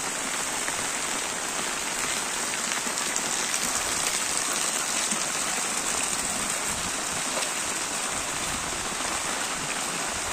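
Heavy rain falling steadily onto a flooded street, an even, unbroken hiss.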